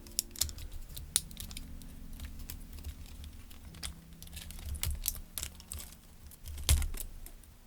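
Plastic parts of a PS3 controller being handled and pried apart by hand: irregular small clicks and taps, with the loudest knock about a second before the end.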